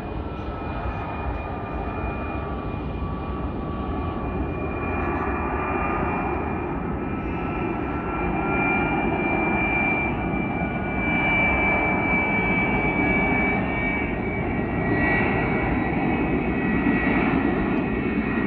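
Ilyushin Il-76TD freighter on landing approach, its four D-30KP turbofan engines running with high whining tones that slide slowly in pitch over a broad rumble, growing louder as it comes nearer.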